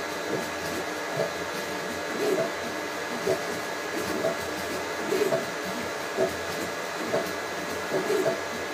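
3D printer running a print: a steady hiss with the motors sounding in short whining bursts about once a second.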